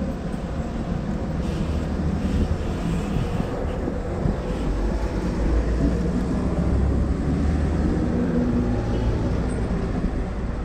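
Street traffic rumbling steadily, growing louder about halfway through as a vehicle goes by, then easing off.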